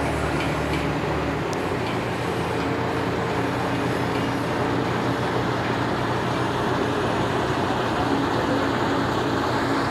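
Diesel engine of a truck-mounted mobile crane running steadily, a continuous loud drone with a faint steady hum on top.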